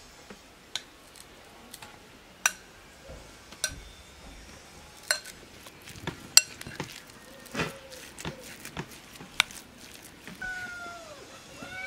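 A metal spoon clinking and scraping against a glass bowl as minced meat is stirred: about seven sharp, ringing clinks at irregular intervals. Near the end comes a short falling animal call.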